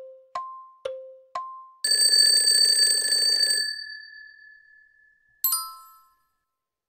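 Quiz countdown-timer sound effect: alternating low and high tick-tock beeps about two a second, then a loud ringing bell for about two seconds as time runs out, one tone lingering and fading. A short bright chime sounds about five and a half seconds in as the answer is revealed.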